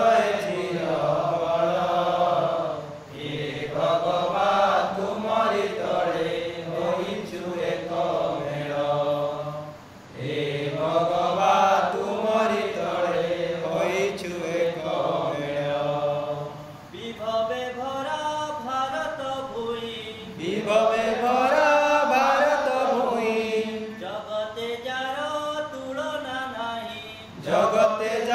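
A man singing an Odia patriotic song alone, in long held melodic phrases with short pauses for breath between them.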